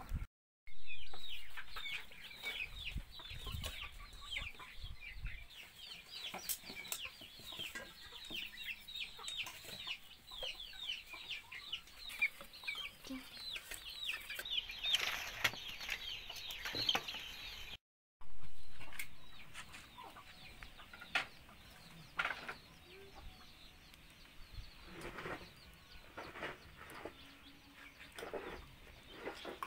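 Chickens: a dense, continuous run of short, high, falling peeps, typical of chicks, for the first half, then sparser peeps with a few lower hen clucks. The sound drops out briefly near the start and again about halfway through.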